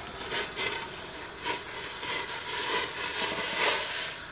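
Ragi-flour batter being poured from a steel mixing bowl into a large steel pot of water: a steady rushing pour with a few light knocks of the utensils.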